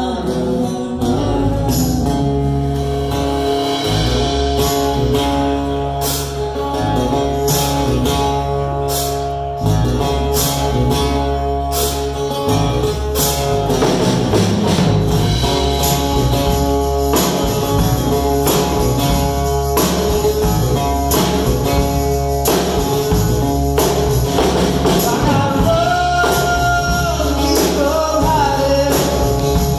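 Live rock band playing: electric guitars, bass and a drum kit, with a woman singing and a tambourine shaken along to the beat.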